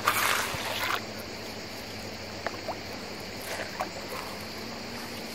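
Shallow river water swishing as a gold pan of gravel is swirled at the surface, with a short burst of louder splashing in the first second.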